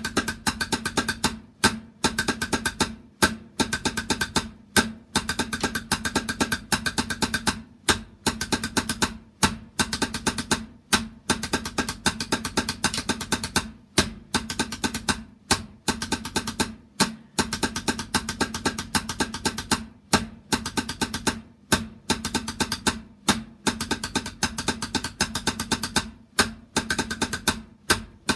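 Drumming: fast runs of strokes in short phrases, each cut off by a brief pause, repeating over and over.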